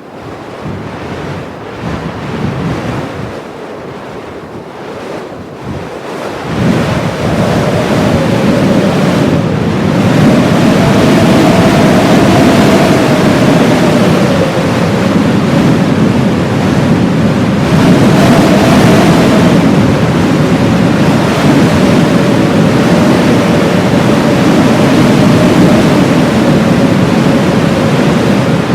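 Blizzard wind blowing in gusts that build over the first six seconds, then holding loud and steady with a faint wavering whistle.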